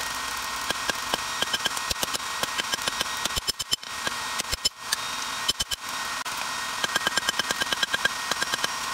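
A hand hammer forging red-hot lawnmower blade steel on an improvised steel anvil: quick runs of ringing metal-on-metal strikes, about three to four a second, with two short pauses, over a steady background noise.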